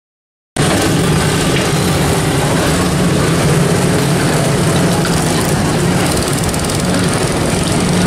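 Steady mechanical drone of vehicles running, with a constant low hum under a wide noisy hiss. It starts abruptly about half a second in.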